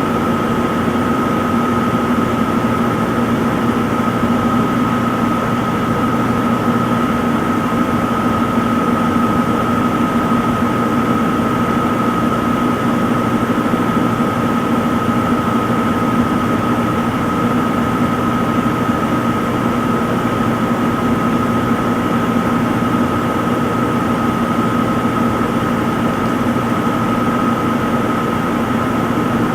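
Front-load washing machine in its spin cycle, spinning at a steady speed: an even hum with a steady high whine from the motor and drum.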